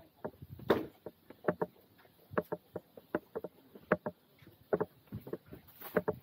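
Footsteps of someone walking at an even pace, about one step every three-quarters of a second.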